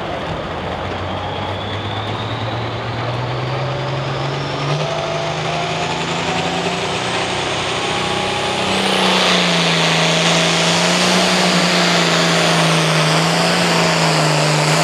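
Hot farm pulling tractor's turbocharged diesel engine revving up with a rising turbo whine while hooked to the sled, then going to full throttle about nine seconds in as it launches down the track, loud and steady.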